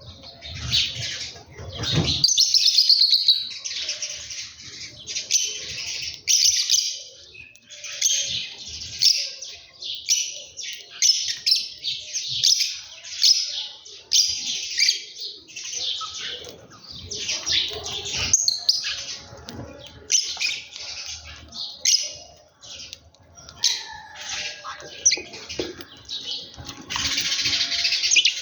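Many small birds chirping at once, dense overlapping calls, with a low rumble in the first two seconds.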